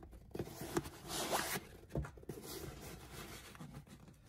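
Fingers scraping and rubbing inside a sneaker, tugging at a glued-in insole that won't come loose: several short scratchy scrapes, the longest about a second in.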